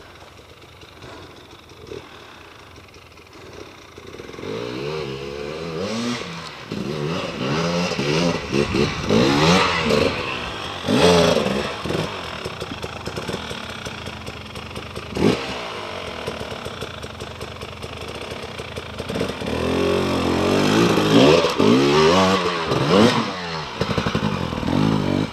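Dirt bike engine revving in repeated bursts under load as it climbs a steep, rutted dirt slope, its pitch rising and falling with the throttle. It is faint at first and louder from about four seconds in, with a sharp knock about halfway through.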